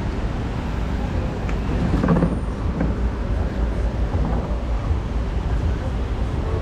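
Street traffic: a steady low rumble of passing vehicles, a little louder about two seconds in.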